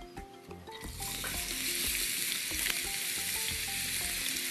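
Finely chopped onion dropped into hot olive oil in a frying pan, sizzling steadily from about a second in, with a few light clicks of a spatula against the pan.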